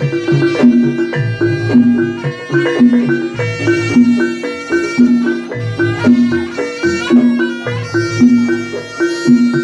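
Live Javanese jaranan gamelan music: a reedy shawm-like wind instrument plays a melody over a low pitched pattern that repeats about once a second.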